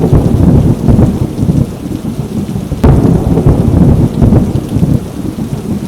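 Hurricane storm: heavy rain over a loud, surging low rumble that cuts off abruptly at the end.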